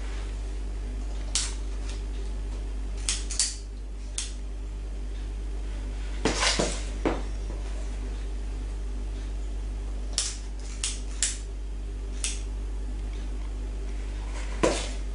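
Metal ice-cream scoop knocking and scraping against a mixing bowl while scooping cupcake batter: a dozen or so short, scattered clinks, a few bunched together about halfway through. A steady low electrical hum runs underneath.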